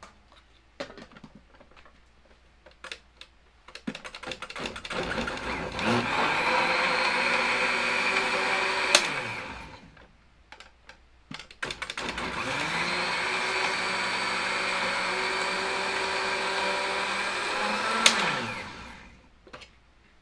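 Countertop blender puréeing avocado and milk: a few clicks as the jar is seated, then the motor spins up, runs steadily for a few seconds and winds down, and after a short pause runs a second, longer time before spinning down near the end. Each run rises in pitch as it starts and falls as it stops.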